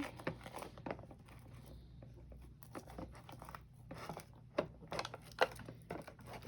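Sticky clear slime being pulled and scraped out of a plastic container, making irregular faint sticky clicks and crackles.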